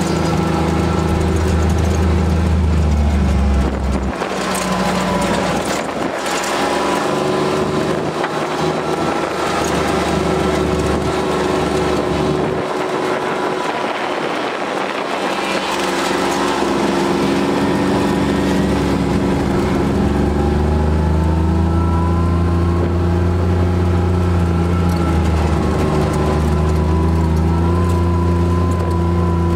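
ATV engine running under way, easing off about four seconds in and picking back up around sixteen seconds, its pitch rising and falling with the throttle.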